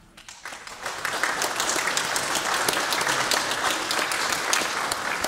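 Audience applauding: the clapping swells up over about the first second, then holds steady.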